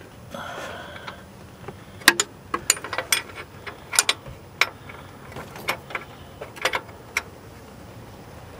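Irregular light metallic clicks and knocks, a dozen or so, starting about two seconds in and stopping near the end, from hands working the serpentine belt back onto the engine's pulleys.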